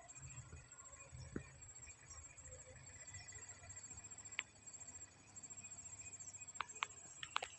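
Faint outdoor ambience: a high, rapidly pulsing insect chirp runs steadily over a low rumble. A few sharp clicks come through, one in the middle and several near the end.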